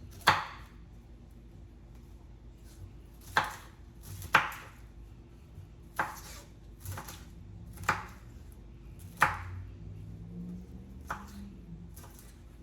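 Kitchen knife chopping carrots on a cutting board: about nine separate sharp chops at an uneven, unhurried pace, the first few loudest.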